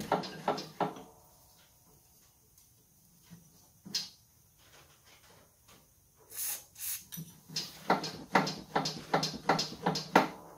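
Lawn tractor mowing deck's belt pulleys being turned back and forth by hand, a run of repeated rubbing strokes about three a second. Two short squirts of aerosol spray lubricant come about six and a half seconds in, just before the strokes pick up.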